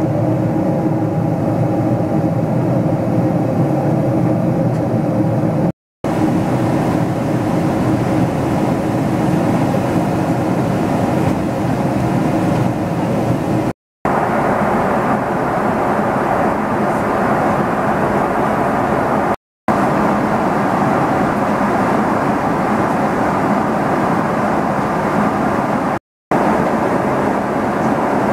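Steady in-flight cabin noise of a Boeing 777-300ER, the constant rush of engines and airflow, cutting out briefly four times.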